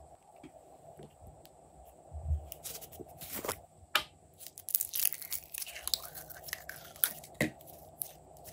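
Blue slime being worked out of its plastic tub and squeezed between the hands: a soft thump about two seconds in, then a run of sticky crackles and small pops.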